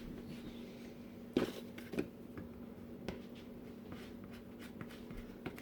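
Soft handling sounds of cinnamon-roll dough being folded by hand on a kitchen counter: faint rubbing and a few light knocks. A steady low hum sits underneath.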